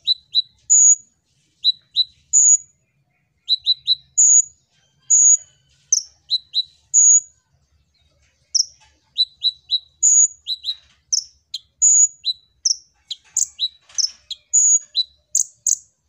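Male Van Hasselt's sunbird (kolibri ninja) singing in rapid, very high, sharp chips, often in quick twos and threes. It breaks off briefly about halfway, then comes back in a denser run of notes.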